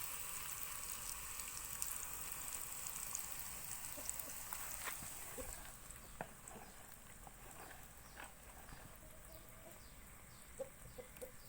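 Hot oil sizzling steadily, which fades away about halfway through; near the end, a few faint short clucks of chickens.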